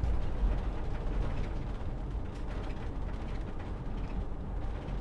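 Cab noise of a Bailey Adamo 75-4T diesel motorhome on the move: a steady low rumble from the engine and tyres, with small creaks and rattles from the coachbuilt body and fittings.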